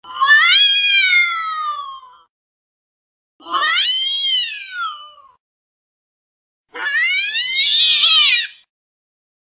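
Domestic cat meowing three times, each a drawn-out meow of about two seconds that rises then falls in pitch, with a second or so of silence between them; the last meow is harsher.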